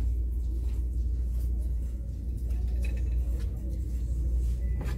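Store ambience: a steady low rumble with faint background music and voices, and a light knock near the end.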